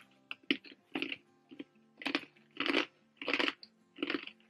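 Chewing a crunchy baked focaccia cracker (Croccantelli prosciutto square), with a crisp crunch about every half second to two-thirds of a second, very crunchy.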